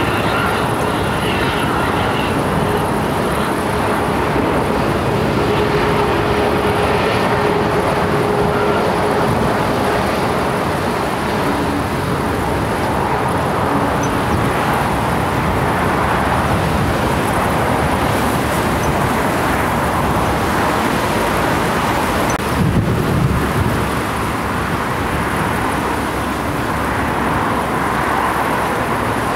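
Airbus A320neo-family airliner's jet engines running as it taxis, a steady rushing noise with a faint steady hum through the first several seconds. A brief low rumble comes about 23 seconds in.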